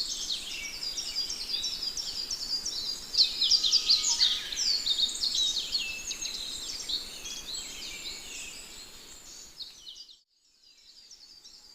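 Many birds chirping at once over a faint background haze, fading out about ten seconds in.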